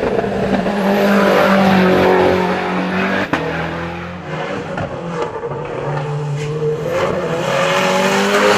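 Ford Fiesta WRC rally car's 1.6-litre turbocharged four-cylinder engine revving hard through the bends. Its pitch rises and falls with gear changes, and a few sharp cracks cut through.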